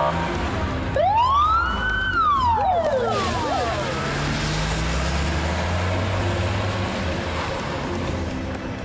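Police car siren giving one rising-and-falling wail about a second in, followed by steady engine and road noise as the car drives off.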